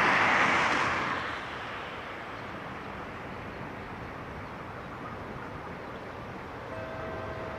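Class 35 diesel locomotive approaching slowly at the head of a train: a steady low running noise. A loud hiss at the start fades within the first second and a half, and a faint steady whine comes in near the end.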